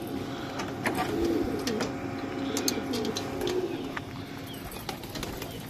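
Domestic pigeons cooing in a steady low murmur, with a few sharp clicks and rattles from the wire-mesh loft door being handled.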